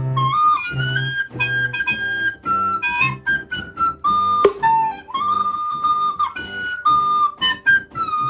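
Recorder playing a melody in held notes and short runs over a steady low accompaniment.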